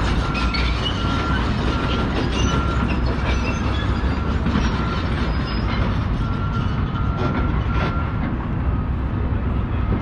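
Construction-site din: a steady heavy rumble with a short high beep repeating about once a second, which drops out midway and comes back.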